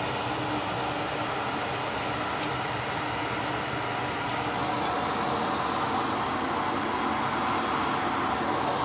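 Steady hiss and hum of chicken wings frying in a nonstick pan, with a few faint short clicks about two and four and a half seconds in.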